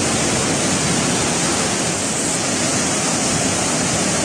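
Muddy floodwater rushing down a city street as a fast torrent: a loud, steady rush of water.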